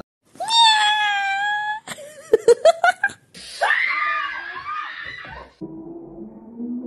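Screaming: a long, loud, high-pitched cry, then a quick stutter of sharp sounds, then a second scream. Muffled music comes in near the end.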